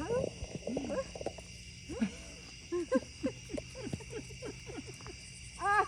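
Night chorus: crickets trilling steadily, with many short, irregular calls from frogs.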